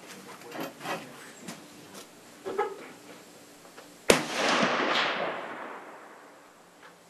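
A few light clicks and knocks, then about four seconds in a single shot from a Type 99 Arisaka 7.7 mm bolt-action rifle, its report echoing and dying away over about two seconds.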